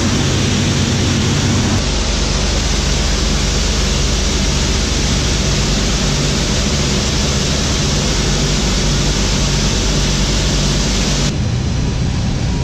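Loud, steady drone of a B-25 Mitchell bomber's twin radial engines with heavy rushing air noise, heard from inside the aircraft's nose. The mix changes abruptly about two seconds in and again near the end.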